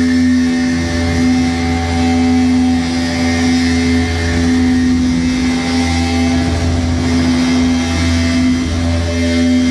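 Loud electronic noise music: a steady dense drone with a heavy low hum, a strong held tone and layers of sustained tones and hiss above it, without a break.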